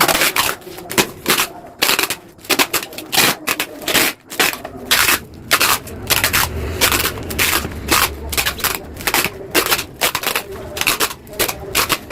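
Quick, irregular hammer blows on the steel of a Yamaha RX-King exhaust muffler, two or three a second, as its inside is being hollowed out (bobok) to change its sound.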